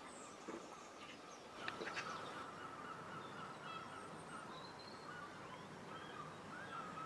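Faint outdoor birdsong, short chirps and calls over a wavering background of birds, with a few sharp clicks about two seconds in.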